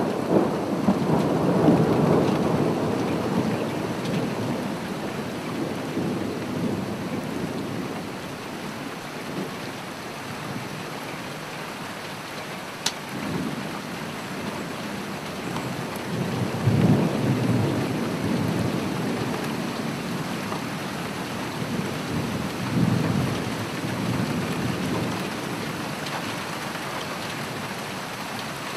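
Steady rain with rolling thunder that swells and fades three times: near the start, just past the middle, and again a few seconds later. A single short click sounds near the middle.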